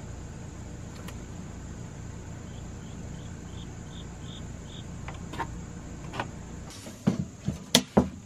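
A steady low hum under a run of about seven short, high chirps, a little over two a second, typical of an insect. Near the end come a few sharp clicks and knocks as a tape measure and metal speed square are handled on the 2x4 lumber, the loudest sounds here.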